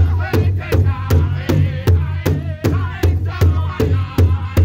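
Powwow drum group: several drummers striking a large hide powwow drum together in a steady beat of nearly three strokes a second, with high, wavering voices singing over it.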